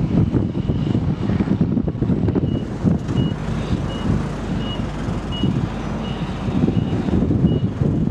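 Vehicle reversing alarm sounding short high beeps, about three every two seconds, over heavy wind rumble on the microphone.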